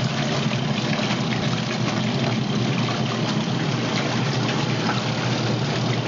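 Two small portable washing machines, a Panda twin-tub and a Panda Mini, running together: a steady motor hum with water churning in the tubs. The twin-tub's motor is running hard at high speed, and the Mini is working more gently beside it.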